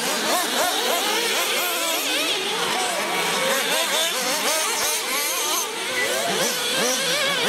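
Several nitro-engined RC buggies running together, their high engine whines rising and falling as the throttles open and close, overlapping one another throughout.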